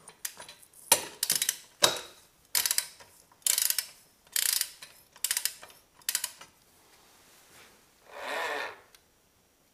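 Socket ratchet clicking in about seven short bursts, roughly one a second, as the front sprocket nut is run down on the countershaft; a single longer rasp follows near the end.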